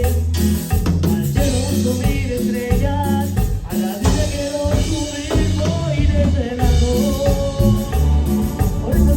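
A live band playing a Latin dance song, with drums, bass and a sung melody line.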